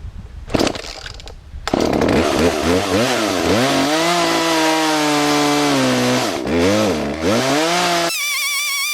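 Gasoline chainsaw starting up, then running at high revs while cutting through a log, its pitch dipping and recovering as the chain bogs under load. It cuts off abruptly near the end, giving way to electronic music.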